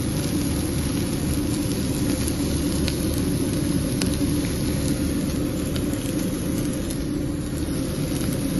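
A steady low mechanical rumble with a few faint clicks about three and four seconds in.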